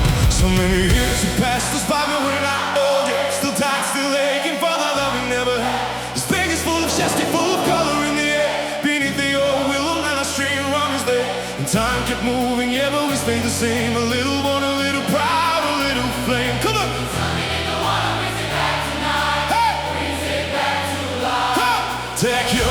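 A song with choir-like singing over a bass line that steps from note to note.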